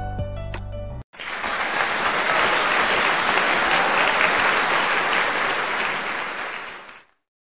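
Instrumental music that cuts off about a second in. After a brief gap comes applause, which fades out near the end.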